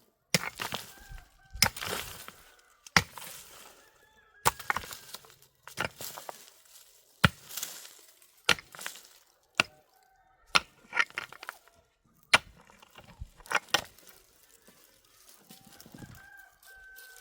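Repeated hard strikes of a hand tool working the ground, about one every second and a half, stopping about three-quarters of the way through. A rooster crows faintly several times between the strikes, most clearly near the end.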